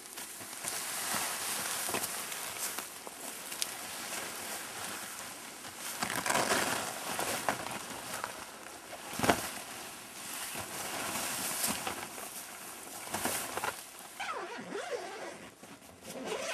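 Camouflage fabric of a pop-up hunting blind rustling and flapping in uneven swells as it is unfolded and spread out by hand, with one sharp knock about nine seconds in.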